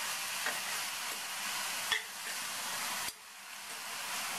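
Shredded cabbage sizzling as it is sautéed in oil in a stainless steel pan and stirred with a steel spatula, with a couple of taps of the spatula on the pan. The sizzle drops abruptly about three seconds in.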